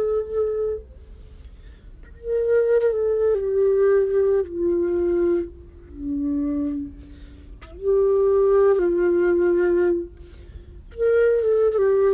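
Solo flute playing a slow melody in short phrases of held notes that mostly step downward, with brief pauses between phrases.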